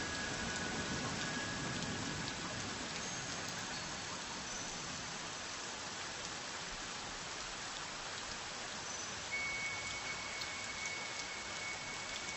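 Steady rain, an even hiss of falling drops. A few faint, high held tones sound over it near the start and again from about three-quarters of the way in.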